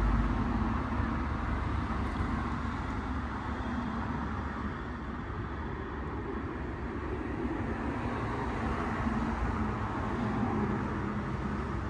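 Steady low rumble of a car's running noise, without distinct knocks or clicks.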